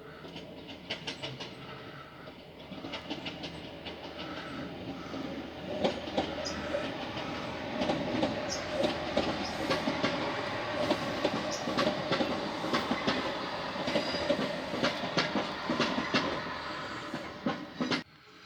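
Train running past on the track, its wheels clicking over rail joints above a steady hum. It grows louder about six seconds in and cuts off suddenly near the end.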